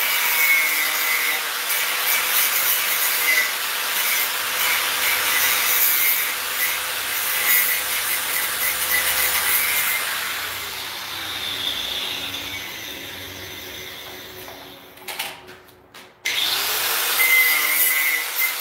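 Handheld electric grinder cleaning the weld beads off the corners of a uPVC window frame: a rasping grind over a steady motor whine. About ten seconds in it stops grinding and its motor winds down to near quiet. It then starts up again and grinds a corner once more near the end.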